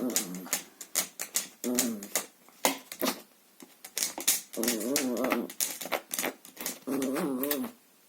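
Chihuahua growling in several short, wavering bouts as it bites and tugs at a vacuum cleaner hose, over rapid clicking and clattering from the hose play.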